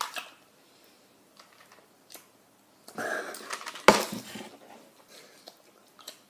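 A boy's short breathy laugh about three seconds in, followed by a sharp thump; otherwise faint small clicks in a quiet room.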